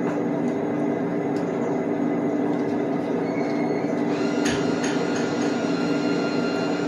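A drink vending machine's bill acceptor briefly draws in a dollar bill, a short mechanical whir and clicks about four and a half seconds in, over a steady low hum.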